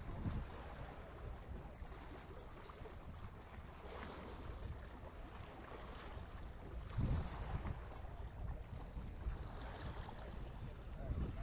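Wind buffeting the microphone over a steady wash of ocean surf, with low gusts just after the start, again about seven seconds in and near the end.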